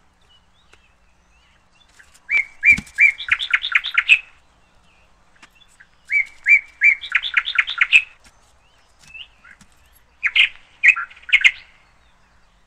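A bird singing: the same short song phrase three times, about four seconds apart, each a few even notes followed by a quick run of chirps.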